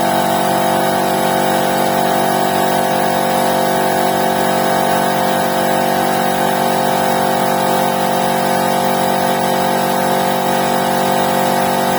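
Piston air compressor driven by a 2.2 kW electric motor, running steadily under load as it pumps the tank back up to pressure. It is running normally: the stuck stator-winding changeover relay has been cleaned, so the motor no longer hums without starting.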